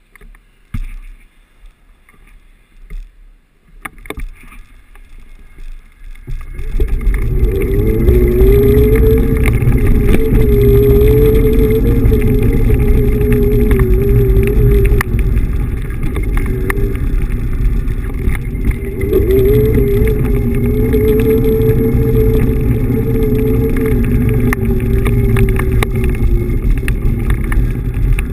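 Xiaomi M365 Pro electric scooter riding: after a few faint knocks, about six seconds in a loud low rumble of wind and tyres on paving stones sets in, with a wavering hum that dips for a few seconds midway and then returns.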